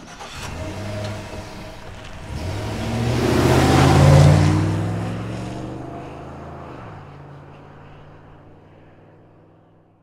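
Cinematic logo sound effect: a low rumbling swell with a rising whoosh that builds to a peak about four seconds in, then slowly fades out.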